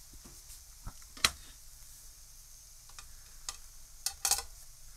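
Chicken-and-turkey burger patties and buns sizzling on an open contact grill: a steady hiss with scattered crackles, the sharpest about a second in. Near the end, a brief rustle as a bun is lifted off the grill plate.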